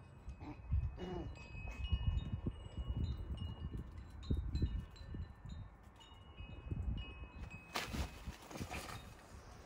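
Chimes ringing: clear high tones of steady pitch, several overlapping, each held briefly before fading, over irregular low thumps. About eight seconds in, a loud rustling hiss lasts about a second.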